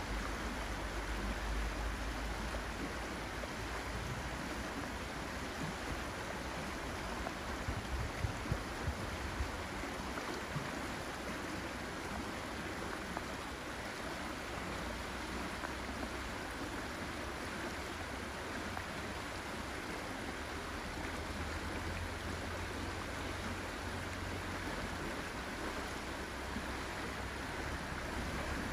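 Steady rushing of a small river pouring over a low weir, with a few short knocks about eight to nine seconds in.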